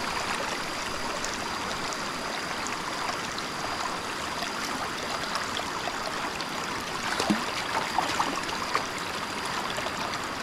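Shallow water running steadily, as a stream does, with a few small splashes about two-thirds of the way through.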